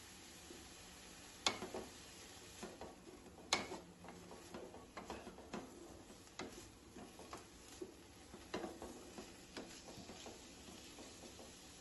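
Perforated wooden spatula stirring chopped mustard greens in a non-stick kadai, knocking and scraping against the pan in irregular strokes. Two sharper knocks come in the first few seconds.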